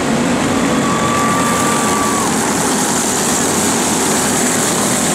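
Go-kart engines running steadily, a dense continuous drone with no breaks.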